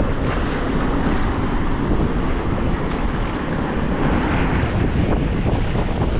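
Surf washing in over lava boulders and rock shelf, a steady rushing of broken water, with wind rumbling on the microphone throughout.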